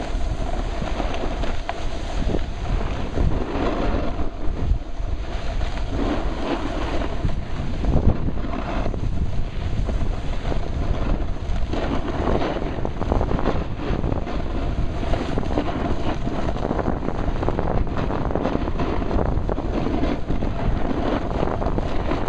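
Wind buffeting the microphone over the steady scraping hiss of a snowboard sliding and carving on packed snow during a run down the slope.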